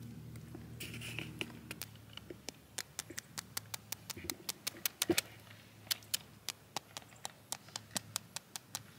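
A hand moving in shallow, clear water among pebbles and stones, making irregular sharp clicks and small ticks, about two or three a second, with a few louder ones near the middle.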